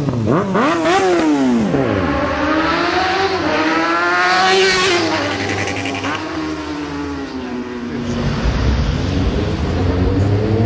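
Sport motorcycle engines revving and accelerating hard. There are quick throttle blips in the first second, then one long climb in pitch that peaks and drops about four and a half seconds in. The engine runs lower for a while, then gives another sharp blip near the end.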